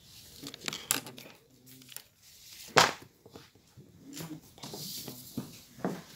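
A few sharp taps or knocks with light rustling between them; the loudest tap comes about three seconds in.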